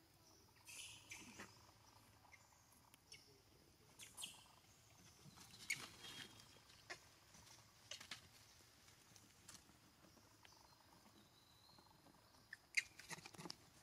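Near silence, broken by a few faint, scattered rustles and light ticks.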